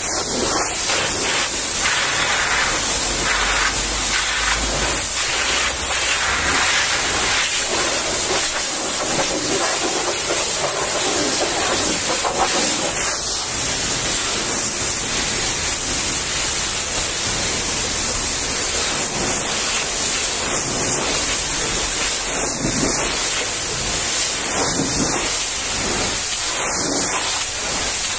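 High-pressure washer jet spraying water against a truck's fuel tank and cab panels: a steady, loud hiss of spray.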